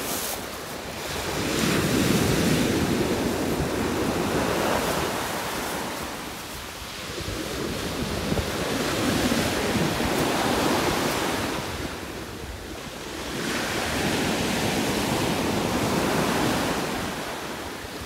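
Surf breaking and washing up a sandy beach, the noise of the waves swelling and ebbing every five or six seconds, with wind on the microphone.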